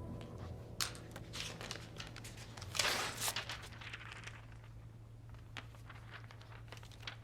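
Paper rustling and being handled while someone writes, with small clicks and taps, busiest about three seconds in, over a steady low room hum.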